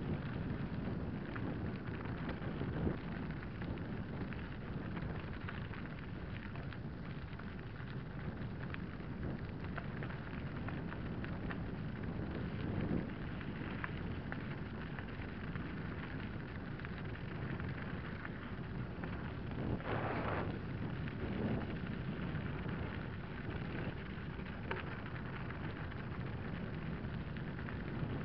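Mountain bike descending a rocky gravel track: a steady crunch and rumble of tyres over loose stones with constant fine rattling, and a few louder jolts over bumps.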